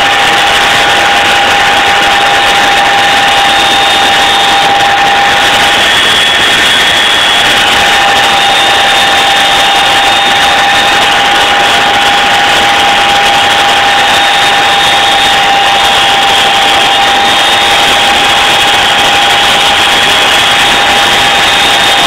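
Boeing CH-47 Chinook tandem-rotor helicopter in flight, heard from inside the cabin: loud, steady noise with a constant high whine over it.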